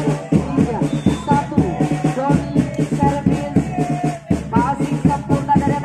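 Music with a singing voice over a steady, busy beat.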